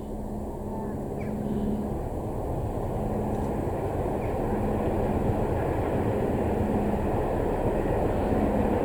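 Steam-hauled train led by LMS Black Five locomotives approaching: a steady rumble that grows louder throughout.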